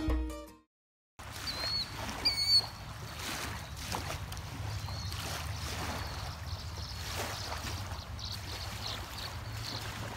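Background music fades out at the start. After a short silence comes lakeshore ambience: small waves lapping, with a steady low hum under them. A bird chirps a few times, most clearly about two seconds in, then faintly near the end.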